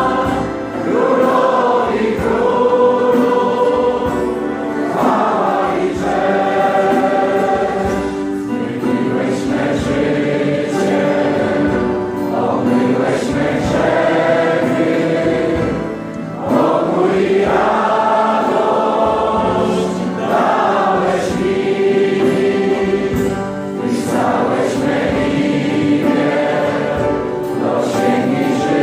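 A congregation singing a Christian worship song in Polish, many voices together in long sung phrases, with brief breaths between lines.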